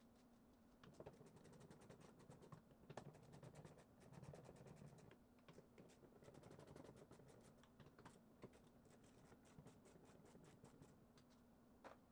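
Faint, irregular clicks and taps, loosest and busiest in the first half, over a low steady hum.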